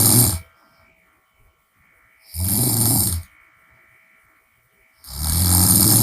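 A woman snoring loudly with her mouth open, each snore about a second long and coming about every two and a half to three seconds. One snore ends just after the start, a full one comes in the middle, and another begins near the end.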